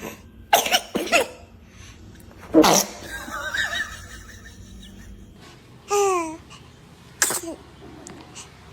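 A baby sneezing and laughing in about five short, separate bursts, including a sharp noisy sneeze-like burst near the middle and a falling squeal about six seconds in.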